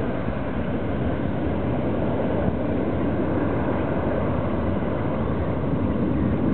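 Boeing 737-800's CFM56-7B jet engines at climb-out thrust after takeoff: a steady, deep roar from the departing airliner.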